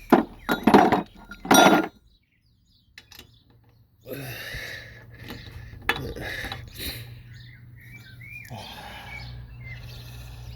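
Loud metallic clanks and clinks of hand tools, a breaker bar and socket, on a car's wheel nuts in the first two seconds. After a brief dropout, a steady low hum and outdoor background follow, with a short bird chirp near the end.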